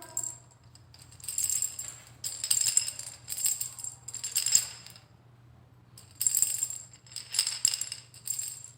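Montessori sound-box cylinders rattling as they are shaken by hand, in two runs of about four shakes each with a pause of about a second near the middle: two cylinders being shaken in turn to compare their loudness and verify which is the softest.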